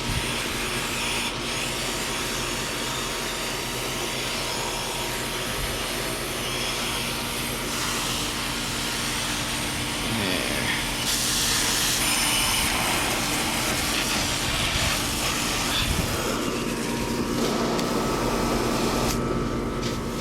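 Garden hose spray nozzle on its shower setting, water hissing steadily onto the fins of an air-conditioner condenser coil, a little louder from about ten seconds in. A faint steady hum runs underneath.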